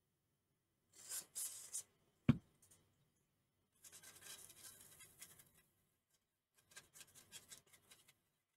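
A short hiss of aerosol cleaner sprayed onto an engine control unit's circuit board, a single sharp knock, then scratchy scrubbing of the board with a small brush in two spells, cleaning it after soldering.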